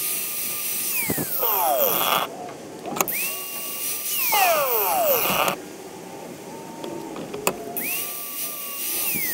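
Small handheld angle grinder grinding down the edges of metal washers in short runs: the motor whine climbs to a steady pitch, holds, then falls away as the disc coasts down, with a grinding hiss as it slows. It stops once near the start, runs again in the middle, goes quiet, and starts again near the end.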